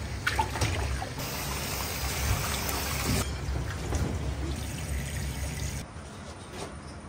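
Hot water pouring and dripping off a wire-mesh strainer basket of monkfish pieces as it is lifted from a steaming stockpot, in two spells of heavy pouring, then dropping away to a quieter background near the end.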